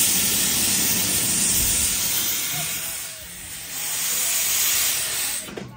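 Narrow-gauge steam locomotive blowing steam from its open cylinder drain cocks as it moves off: a loud hiss that eases for about a second near the middle, comes back, then dies away just before the end.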